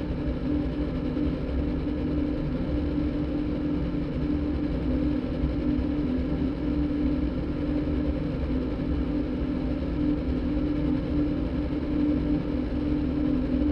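Electronic sound-design drone made by cross-synthesizing a motorbike engine recording with a đàn bầu (Vietnamese monochord) concert recording: a steady engine-like hum with one held note on top.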